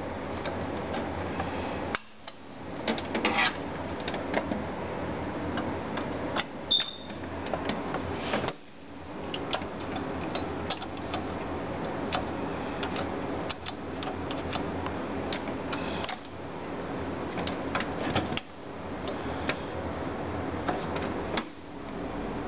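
Rapid mechanical clicking and rattling of a screwdriver turning the heat sink's mounting screws, in stretches broken by short pauses.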